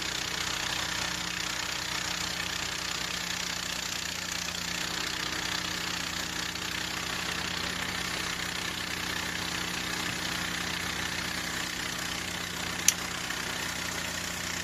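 Harbor Freight band sawmill's small gas engine idling steadily, with a hiss of the blade-lubrication water pouring onto the band. One sharp click near the end.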